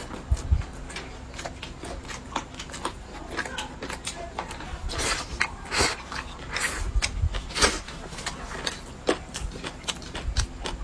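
Close-up eating sounds: irregular wet clicks and smacks of chewing, with a few low thumps.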